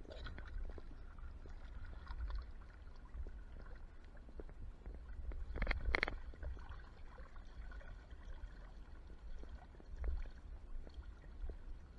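Lake water sloshing and splashing close against the side of a small jon boat, over a low steady rumble, with one louder splash about six seconds in.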